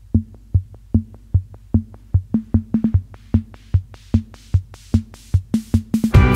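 Electronic music intro: a drum-machine kick beats about two and a half times a second, and brighter percussion hits join in and build over it. About six seconds in, the full track comes in with sustained chords.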